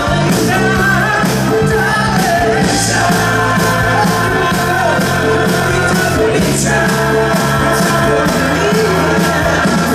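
Live rock band playing, a male lead singer singing into a microphone over a steady drum beat.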